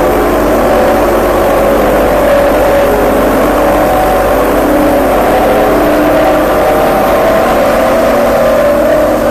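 Engine of a single-drum road roller running steadily close by, a constant mechanical drone with a slight wavering in pitch.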